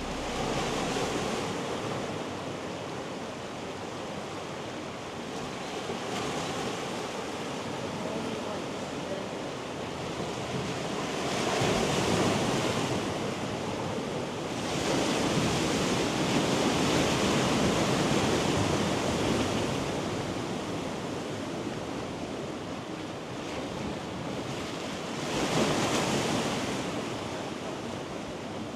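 Sea waves breaking and washing on the shore, a steady rush that swells and falls back, with the biggest surges about twelve seconds in, again a few seconds later, and near the end.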